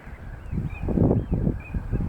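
Wind buffeting the microphone in irregular low rumbling gusts that start about half a second in, over faint small-bird chirps repeating at a high pitch.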